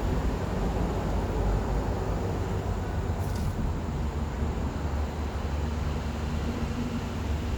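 Steady low rumble of vehicle traffic on the bridge overhead, with a brief hiss about three seconds in.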